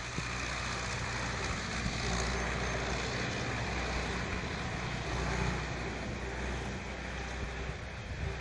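Steady outdoor background noise: a low rumble under an even hiss, with no single sound standing out.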